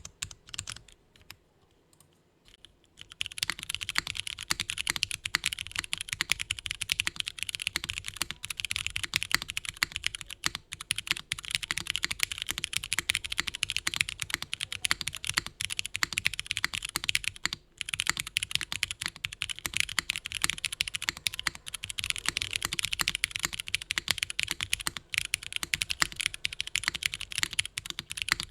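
Typing on a custom mechanical keyboard: a polycarbonate-cased SINGAKBD Kohaku with an aluminium plate, broken-in Cherry MX Brown tactile switches that are lubed and filmed, and GMK keycaps. A few scattered key presses come first, then continuous fast typing starts about three seconds in, with one brief pause past the middle.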